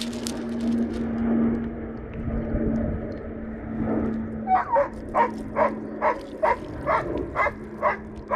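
Dog barking in a quick, steady run of about ten short barks, roughly two and a half a second, starting about halfway through, over a steady low hum.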